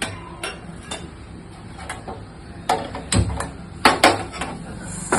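Metal spatula knocking and scraping against a kadai while stirring urad dal and chana dal as they dry-roast: a series of sharp clinks, at first about every half second, then louder and closer together in the second half.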